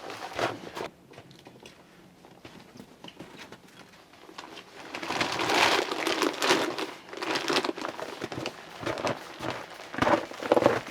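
Rustling and crinkling handling sounds with scattered light knocks. Quiet at first, it picks up about five seconds in.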